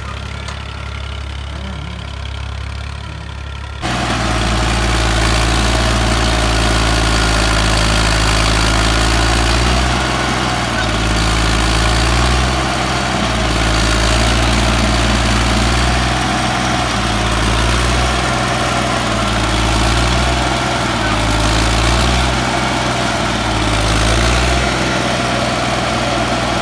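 1988 Massey Ferguson 35 tractor's diesel engine working under load, pulling a 14-disc harrow through hard ground, running steadily with slight swells and dips. About four seconds in the sound jumps abruptly louder and fuller.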